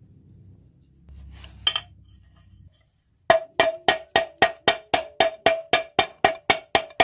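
Faint handling of metal engine parts with a single light clink, then from about three seconds in background music enters: a steady percussive beat of wood-block-like strikes, about four a second.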